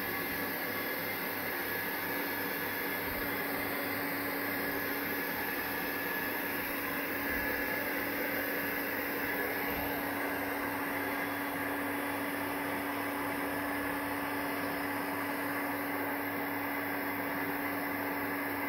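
Steady machine hum with a constant hiss and a low steady tone, unchanging in pitch and level.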